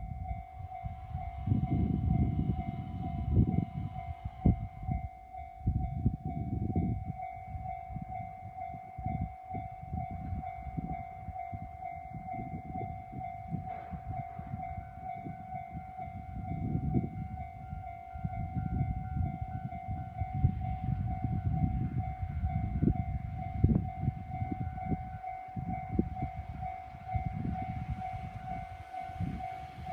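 Japanese level-crossing warning bell ringing steadily in a fast repeating electronic ding, over a low, uneven rumble as a train approaches and passes. A brief horn-like tone sounds a second or two in.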